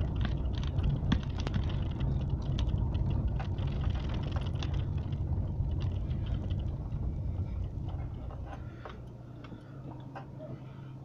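Car driving over cobblestones, heard from inside the cabin: a low engine and tyre rumble with many small rattles and clicks. About eight seconds in the rumble drops away as the car slows to a stop and the engine idles quietly.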